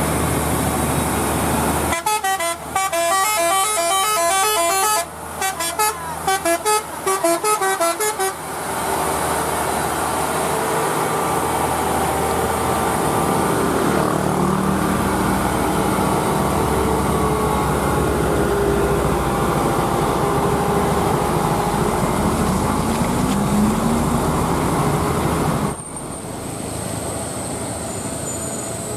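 A heavy vehicle's multi-tone musical horn plays a quick stepped tune for several seconds, over the steady running of heavy engines. Later the engines rise briefly in pitch.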